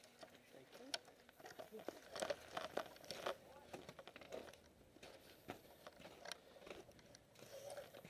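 Faint crunching footsteps on snowy gravel and the rustle of clothing and gear, with scattered light clicks.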